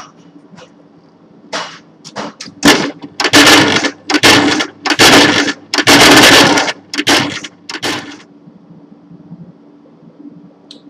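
Quantulus liquid scintillation spectrometer's sample conveyor mechanism clattering and scraping in a run of loud, uneven mechanical bursts, moving during a test of its tray positions. Beneath it runs the instrument's steady low hum.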